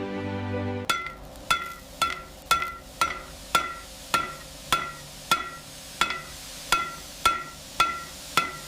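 An even series of sharp, ringing knocks, about two a second, each ringing at the same pitch, starting about a second in after soft music cuts off.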